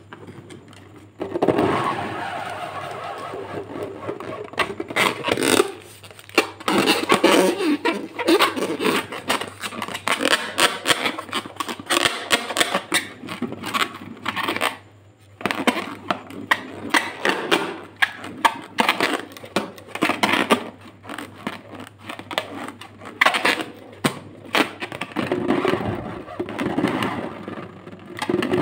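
Fingers rubbing and squeezing an inflated latex balloon: a busy run of short squeaks and scratchy rubbing sounds, with a brief pause about halfway through.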